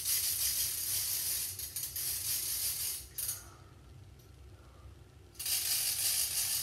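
Small red handheld noisemaker toy rattling in two long stretches, about three seconds, then a pause, then about two more seconds.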